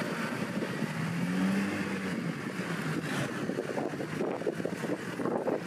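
Off-road 4x4 engine revving on a trial course: the revs climb about a second in and fall back, with a rougher, rattling sound under the engine in the last seconds.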